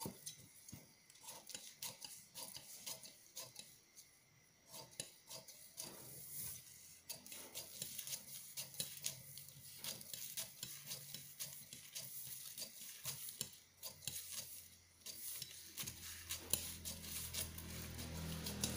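Large tailor's shears cutting a thin paper pattern along a spiral line: many short snips in quick succession, with light metallic clicks of the blades.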